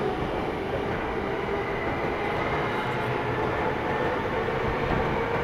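Tokyo Metro 15000 series train standing at a platform, its on-board equipment humming steadily over station noise. A faint steady tone grows a little stronger near the end.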